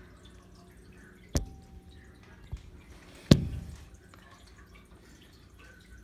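Two sharp knocks about two seconds apart, the second the louder with a brief ring after it, and a small tick between them, over a quiet background.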